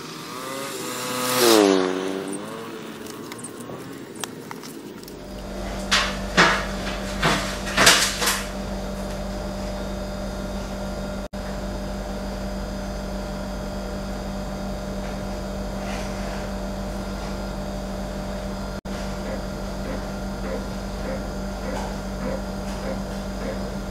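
A short sound whose pitch falls sharply, then a few sharp knocks as a rusty camcorder is handled on a stainless steel tray, over a steady low hum.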